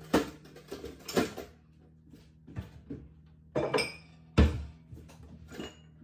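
Dishes and metal kitchenware being handled and set down at a sink and counter: a string of separate clinks and clunks, one ringing clink a little before the loudest, a heavy thud about four and a half seconds in.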